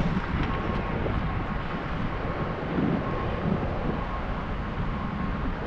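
Wind rushing over the microphone of a camera on a moving fat bike, with a steady low rumble of tyres on wet pavement.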